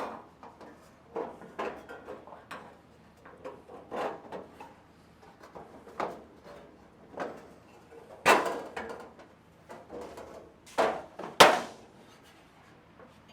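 Irregular light knocks and clanks of metal parts being handled and set in place while a trunk latch is fitted to a steel car trunk lid. The loudest few come in the last third.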